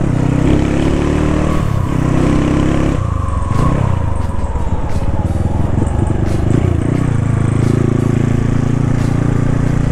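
Motorcycle engine running while riding, its pitch rising and falling with the throttle and gear changes over the first few seconds, then pulling at a steady pitch.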